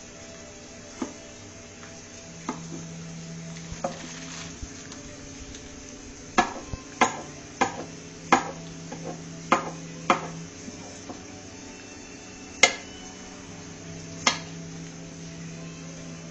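Long slicing knife cutting cucumber on a wooden board: sharp, separate knocks as the blade meets the board, bunched in a quick run partway through, over a faint steady hum.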